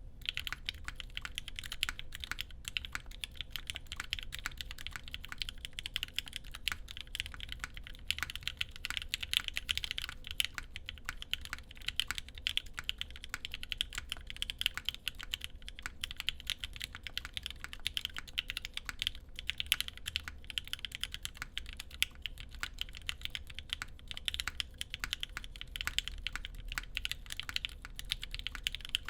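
Steady, fast typing on a Carolina Mech Palmetto60 mechanical keyboard with lubed Gateron Mink linear switches, a full POM plate and GMK keycaps: a dense, continuous stream of key clacks.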